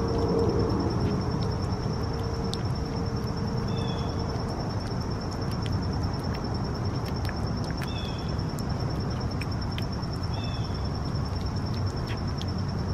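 Close-up of a cat eating soft raw food, with irregular short wet clicks and smacks from its lapping and chewing. Behind it a high insect trill runs steadily, and a bird gives a short double chirp every two to three seconds, over a low outdoor rumble.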